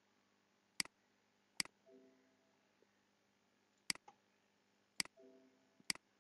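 Computer mouse clicking: five sharp single clicks, irregularly spaced, with a faint short tone twice in between.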